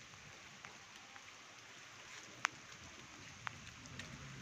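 Steady rain falling, a soft even hiss, with a few sharp taps of single drops landing close by, the loudest about halfway through.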